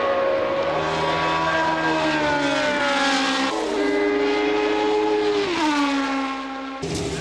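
1970s Formula 1 race car engine at high revs, its pitch dropping in steps and glides several times. Near the end it cuts off suddenly to a different engine sound.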